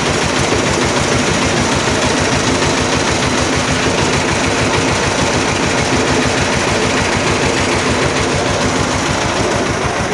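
Small engine running steadily at idle with a fast, even low thumping, together with the steady rush of the kulfi freezer's condenser fan.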